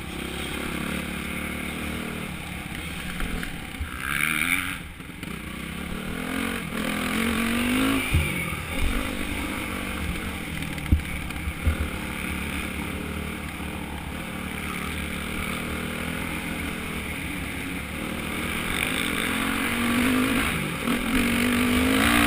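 Motocross dirt bike engine heard from on board, revving up and down through the gears as it is ridden around a dirt track, with wind rushing over the microphone. A few sharp knocks come through around the middle.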